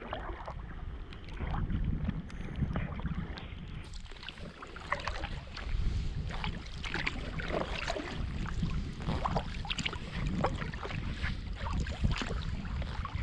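Kayak paddle strokes dipping and splashing in river water, over a steady low rumble of wind on the microphone.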